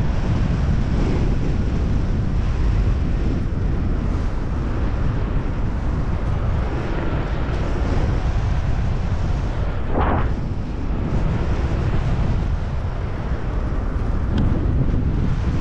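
Wind rushing and buffeting over the microphone of an unpowered paraglider in flight, a steady heavy rumble, with one brief swish about ten seconds in.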